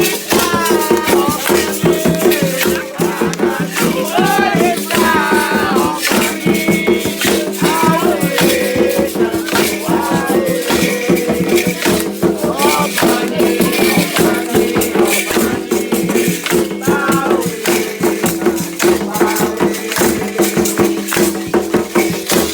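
Group singing of Afro-Brazilian religious chants for Xangô, accompanied by shaken rattles keeping a steady rhythm over other percussion.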